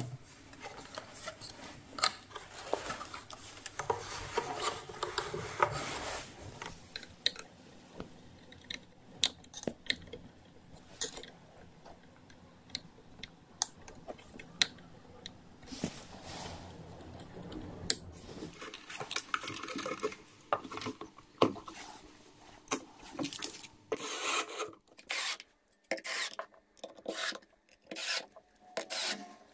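Handling noises from working on a subwoofer's amplifier plate: wires and parts rubbing and scraping, with scattered light clicks and knocks. In the last few seconds comes a quick series of short, repeated scraping strokes as screws are driven in with a screwdriver.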